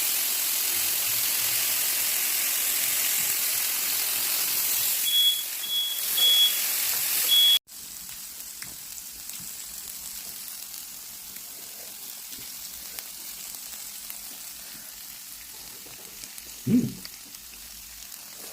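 Meat sizzling loudly and steadily on a hot grill pan; about five seconds in a fire alarm gives a quick run of about four short high beeps. The sizzling then drops suddenly to a quieter level and goes on steadily.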